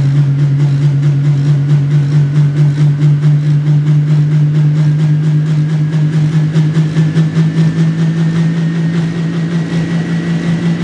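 John Deere Pro Stock pulling tractor's turbocharged diesel engine running steadily at high idle, its low pitch creeping slightly upward, with a faint high whine rising slowly alongside.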